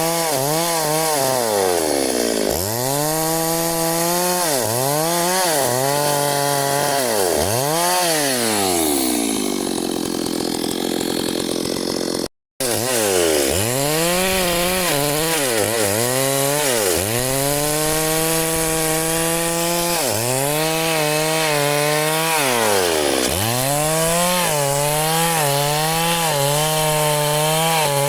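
Chainsaw cutting wood, running near full throttle, its engine pitch dipping again and again as the chain bogs in the cut and then recovering. About ten seconds in the engine slows for a moment, and there is a very brief break in the sound.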